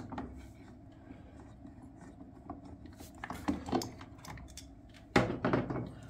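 Hands taking out a furnace air pressure switch and its small screw: scattered small clicks and rattles of plastic and metal parts, with a louder clatter about five seconds in.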